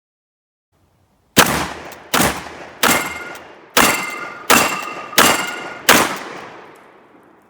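Rock Island Armory VR80 gas-operated semi-automatic 12-gauge shotgun firing seven rapid shots, a little under a second apart, each trailing off over about half a second. The string starts about a second and a half in, and the gun cycles every round without a stoppage.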